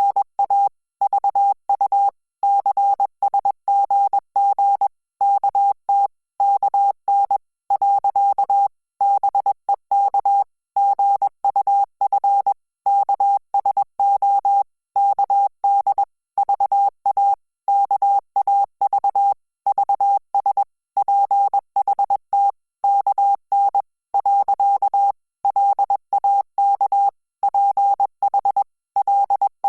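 Morse code sent as a single pitched beep, keyed on and off in short dots and longer dashes with brief gaps between characters, at 20 words per minute, spelling out Korean Hangul text.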